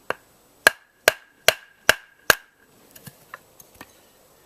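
Wooden mallet striking the back of an axe head to drive it down through a short log and split it (batoning): five sharp blows about two and a half a second, each with a brief ring. A few lighter knocks follow near the end.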